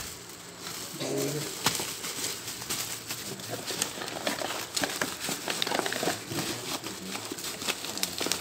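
Plastic bubble wrap crinkling and crackling as it is handled and wrapped around an object, an irregular run of many small sharp crackles.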